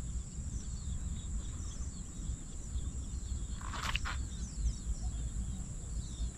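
Small birds chirping repeatedly in open marshland, over a steady high-pitched tone and a low rumble, with a brief noise about four seconds in.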